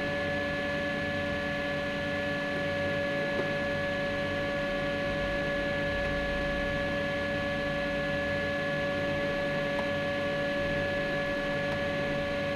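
Fullextruder PRO desktop filament extruder running during a spooling session: a steady mechanical hum with several held whining tones from its motors.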